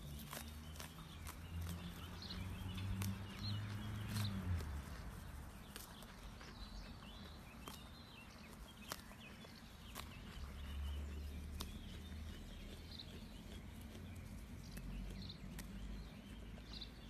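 Outdoor pasture ambience: small birds chirping, scattered soft clicks and ticks, and a low hum for the first four seconds or so and again briefly later.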